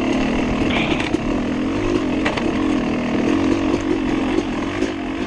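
Dirt bike engine running while ridden, its pitch rising and falling with the throttle, with a few short knocks as it goes over the trail.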